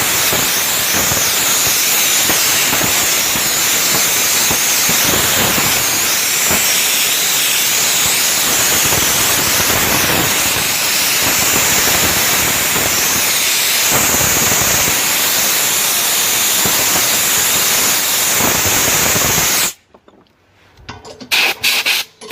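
Air compressor hissing loudly and steadily with air, cutting off suddenly near the end, followed by a few short, sharp hisses.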